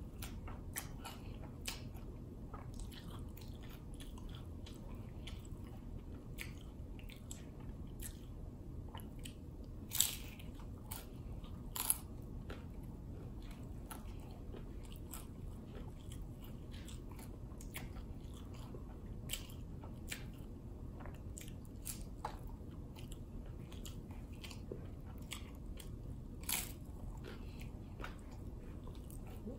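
Close-miked chewing and crunching of a hard Nacho Cheese Doritos Locos taco shell: a string of short crisp crunches, the loudest about ten and twelve seconds in and again near the end, over a steady low background hum.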